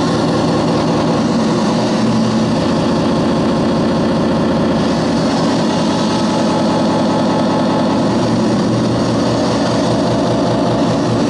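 Live harsh noise music: a loud, dense wall of distorted electronic noise with a fast rattling pulse in the low end, holding steady without a break.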